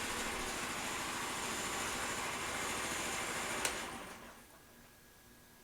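Yamaha Riva 125 scooter's single-cylinder four-stroke engine idling steadily, then a click about three and a half seconds in as it is switched off, and the engine runs down to silence within about a second.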